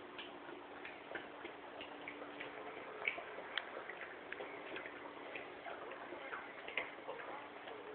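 Great Pyrenees puppy eating from a stainless steel bowl: irregular sharp clicks, with a few louder ones about three seconds in and near the end.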